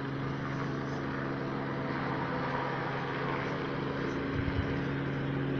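Helicopter flying low overhead: a steady, unbroken drone.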